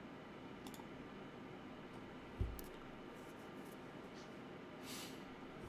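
Quiet room tone with a few faint computer mouse clicks and a single low thump about two and a half seconds in.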